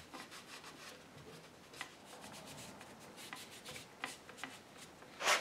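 Cloth rag wiping and rubbing on a wooden chair frame in soft, irregular scuffing strokes, cleaning off squeezed-out wood glue at a freshly glued joint. A brief louder noise comes near the end.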